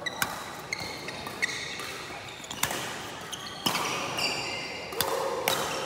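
Badminton rally: about half a dozen sharp hits of rackets on the shuttlecock, with high squeaks of court shoes on the floor between them.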